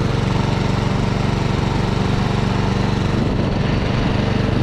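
Small lawn mower engine running steadily at wide-open throttle on a freshly overhauled carburetor, soon after a cold start.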